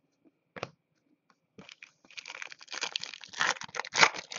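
Crinkling and rustling of card packaging as trading cards are handled: a single click about half a second in, then a dense, irregular crackle from about a second and a half on.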